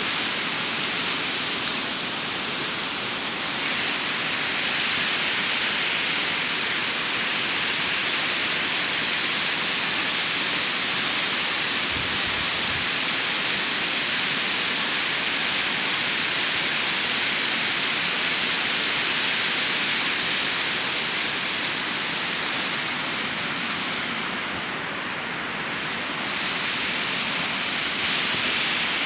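Steady rush of water flowing over the rocks of a shallow stream, an even hiss that dips slightly twice.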